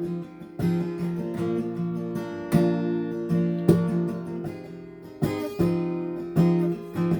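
Acoustic guitar strumming and ringing chords, with no singing: an instrumental break between sung lines of the song. The strums come at an uneven rhythm, each chord sounding on after the stroke.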